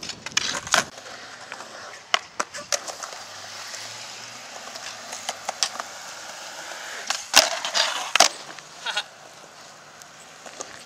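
Skateboard on a concrete skate park: a few sharp clacks as the board is dropped and stepped on, then the wheels rolling with a steady grinding hiss. About two-thirds of the way through come two loud clacks of the deck hitting the concrete, under a second apart.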